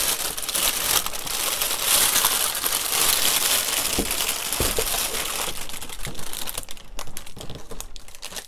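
Plastic bag around a new flat-screen TV crinkling and rustling as it is gripped and pulled up out of its cardboard box, with a few light knocks about four seconds in and again around six seconds.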